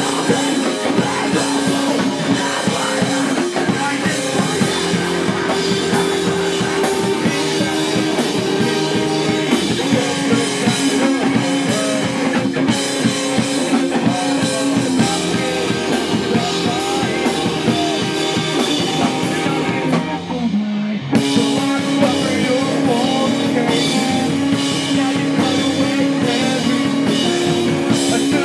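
Live rock band playing loudly, with drum kit and guitars. About twenty seconds in, the cymbals and high end drop out for a moment before the full band comes back in.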